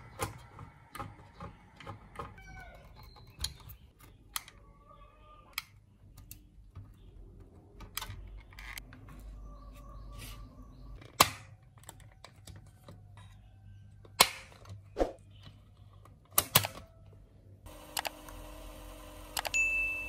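Scattered clicks, taps and knocks of a screwdriver and hands working on an open cassette deck's metal chassis, with a few sharp knocks louder than the rest. A steady hum comes in near the end.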